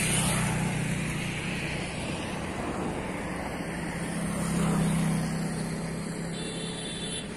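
Road traffic on a bridge: a steady hum of vehicle engines and tyres, swelling as a vehicle passes about halfway through.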